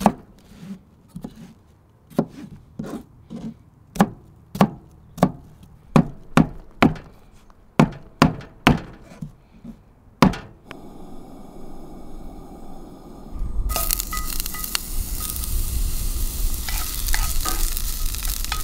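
A chef's knife chops red onion and cilantro on a plastic cutting board, about twenty uneven strokes over ten seconds. The chopping then stops, and a few seconds later sliced onions sizzle steadily in a hot cast-iron skillet as they are stirred with a wooden spatula.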